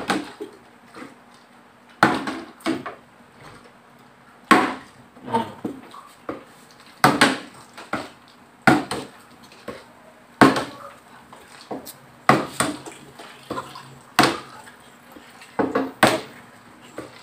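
Plastic water bottle being flipped and landing on a glass-topped table: a sharp knock about every two seconds, each followed by a smaller knock or two as it bounces or topples.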